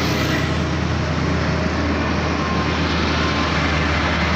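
Steady low rumble of running machinery under a constant even hiss, with no strikes or changes.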